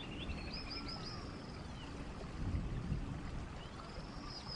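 Bird chirps over a low steady background hum: a quick run of rising-and-falling chirps about half a second in, and the same run again near the end.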